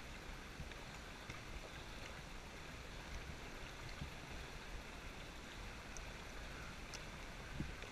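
Faint, steady wash of cave water around inner tubes, with a few small splashes; one slightly louder splash near the end.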